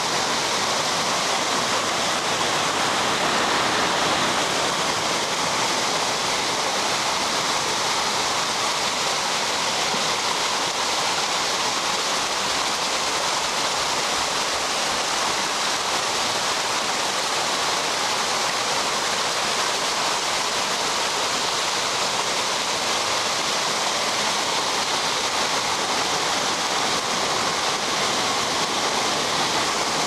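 Artificial rock waterfall: water cascading down a stepped pile of boulders into a pool, a steady, even rush of falling water.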